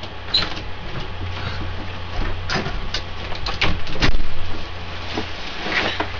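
A room door opening and a person walking in and moving about with a backpack: scattered knocks, footsteps and rustling over a steady low hum, with the loudest knock about four seconds in.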